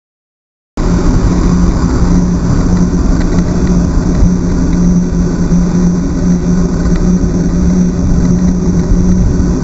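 Wind and road noise on a camera riding on a moving bicycle: a loud, steady rush with a constant low hum, starting about a second in.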